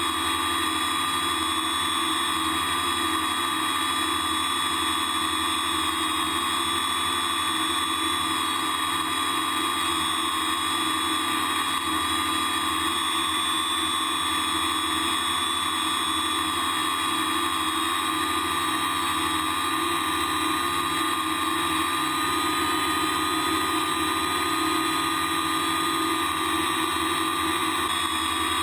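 Multirotor drone's electric motors and propellers whining steadily at a high pitch while it hovers, heard from the camera mounted on the drone.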